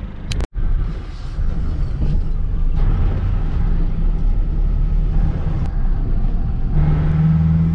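Engine and road noise of a GAZelle Next van heard inside its cab while driving, a steady low hum. The sound cuts out briefly about half a second in, and a stronger steady engine tone comes up near the end.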